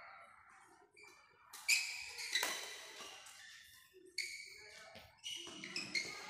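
Badminton rally: rackets striking the shuttlecock about four times, roughly a second apart, with players' shoes squeaking on the court mat between the hits.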